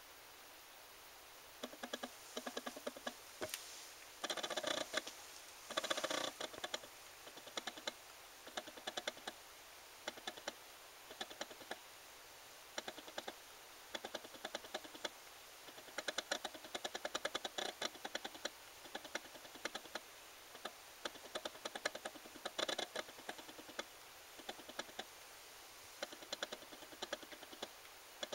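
Bursts of rapid clicks in irregular clusters over a faint steady hiss, densest about a quarter of the way in.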